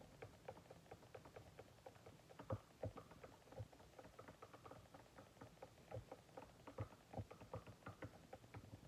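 Faint, rapid light clicks, several a second, of a wooden stir stick knocking against the inside of a glass jar while water-based clear gloss is stirred with powdered food colouring.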